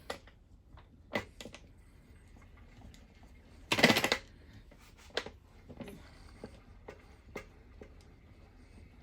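Sharp taps and clicks at irregular intervals, with a louder, denser cluster of about half a second around four seconds in: a milling fixture being tapped into position on the machine table while it is indicated in with a dial indicator.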